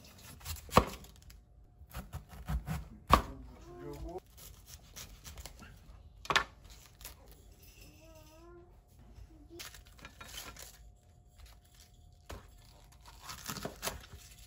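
Cabbage being handled and chopped with a cleaver on a wooden cutting board: a few loud, sharp knocks of metal knives on wood, the crisp tearing of cabbage leaves, and a quick run of chops near the end.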